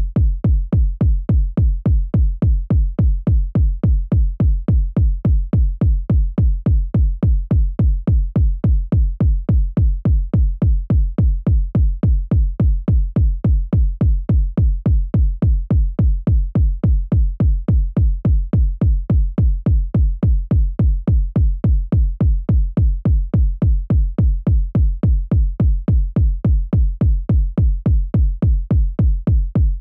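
Background music with a steady, deep drum beat, about two beats a second.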